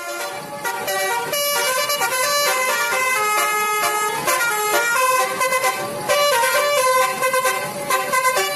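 Basuri telolet bus horn, a multi-tone musical air horn, playing a quick tune: several notes sounding together and stepping rapidly from one pitch to the next without a break.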